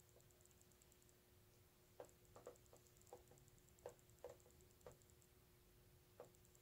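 Near silence: faint room tone with a low steady hum and a scattering of soft clicks, most of them bunched together in the middle.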